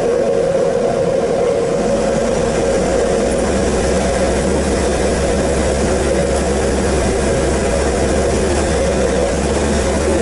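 4WD vehicle driving on a dirt track: steady engine drone and low rumble with road noise from the tyres on the rough surface.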